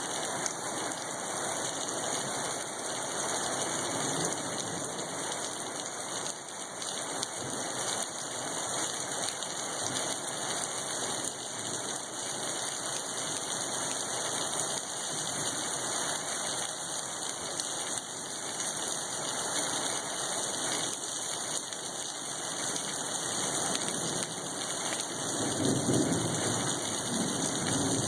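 Heavy storm downpour of rain and hail: a dense, steady hiss of falling precipitation on surfaces. A louder low rumble swells near the end.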